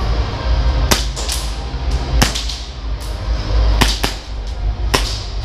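Airsoft gas blowback guns firing single shots: about five sharp cracks, roughly a second apart, two of them close together a little past the middle, over a steady low rumble.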